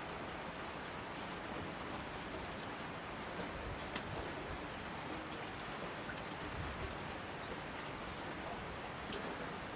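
Steady rain falling, an even hiss with scattered sharper drops ticking through it.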